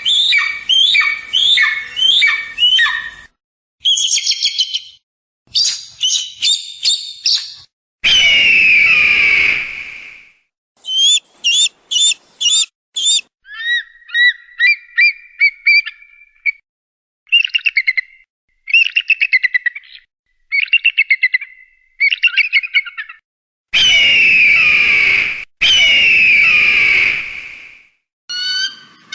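Eagle calls: bursts of quick, high-pitched chirps and piping notes in rapid series, broken by long calls that fall in pitch, one about eight seconds in and two back to back near the end.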